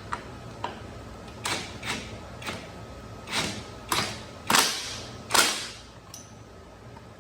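A wrench working the front wheel bolt of a zero-turn mower: a series of about eight sharp metal clinks and clanks with short ringing tails, roughly half a second apart, the loudest in the middle, tapering off after about five and a half seconds.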